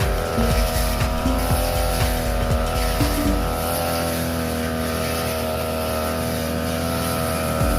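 Brush cutter with a 45 cm blade running at steady high revs while cutting grass, its small engine giving a continuous, even whine.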